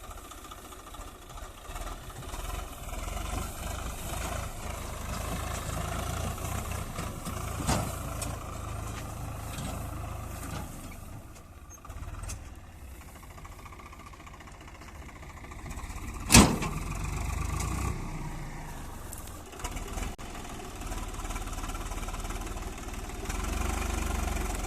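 Diesel engines of a backhoe loader and tractors running, with the load rising and falling. There is a sharp knock about eight seconds in and a much louder metallic bang about sixteen seconds in.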